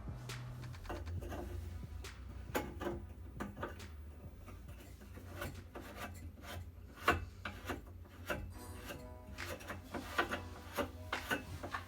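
Irregular scraping and clicking of PVC pipe and fittings being handled and fitted together, over a steady low hum.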